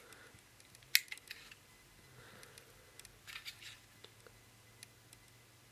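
FN Five-seveN pistol being handled: a sharp metallic click about a second in, then a few lighter clicks around three and a half seconds, over a faint hum.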